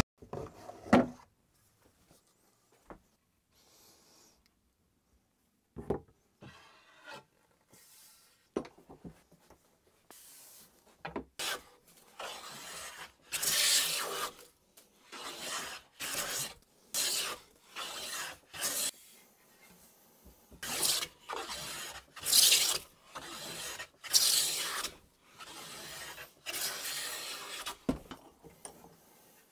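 Metal bench hand plane stroking along the edge of a wooden board in a vise, each pass a rasping swish as it takes off a shaving. The strokes start about a third of the way in and repeat roughly once a second, after a few scattered knocks.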